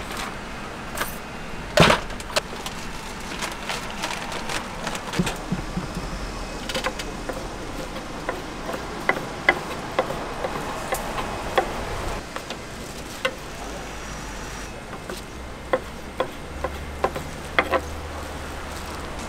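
Kitchen knife slicing sundae (Korean blood sausage) on a wooden cutting board: the blade knocks sharply and irregularly against the wood, with one louder knock about two seconds in.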